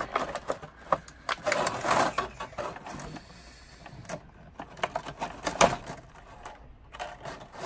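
Crinkling and clicking of a clear plastic blister tray as an action figure is pried and cut free with a small pocket knife, in irregular bursts with a quieter spell midway.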